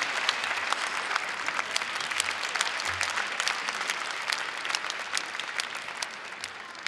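Large audience applauding, the clapping slowly dying away.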